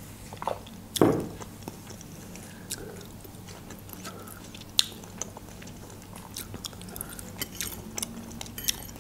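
Close-miked mukbang eating sounds: a drink of water with a sharp knock about a second in, then chewing of pilaf and stuffed grape leaves with scattered short mouth clicks.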